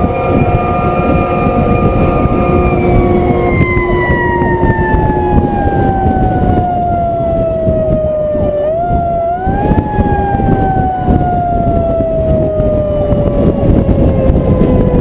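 Fire truck's mechanical siren held at a steady wail, then let go about three seconds in so its pitch slowly winds down; just before ten seconds it is briefly powered again, rising a little, then winds down once more. Heavy wind and road rumble on the truck's outside-mounted microphone.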